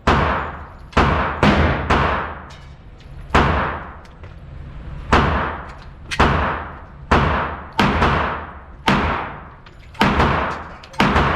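9mm pistol shots fired in a string, about fourteen cracks at an uneven pace of roughly one a second, some in quick pairs, each with a long echoing tail.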